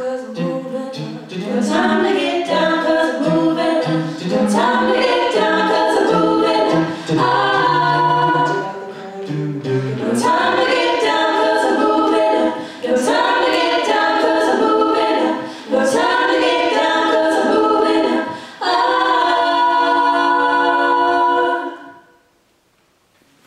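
Mixed-voice a cappella vocal jazz ensemble singing close-harmony chords in short phrases, ending on a long held chord that cuts off sharply near the end.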